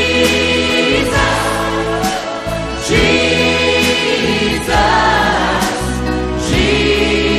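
Gospel worship song: a choir singing long held notes in phrases of about two seconds over a steady instrumental backing.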